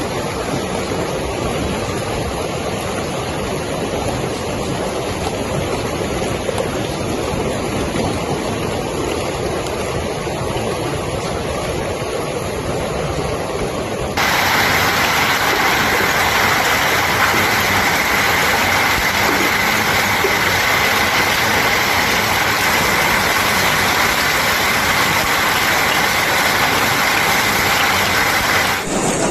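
Heavy rain and hail coming down in a storm, a steady rushing noise. About halfway through it cuts abruptly to a louder, brighter downpour.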